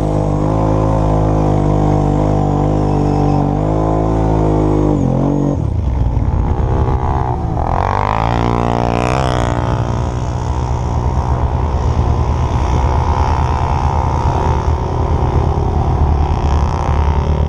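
ATV engine running hard on a snowy slope. It holds a steady note for about five seconds, then shifts and runs rougher. About eight seconds in, a second ATV passes close by, its engine rising and falling in pitch.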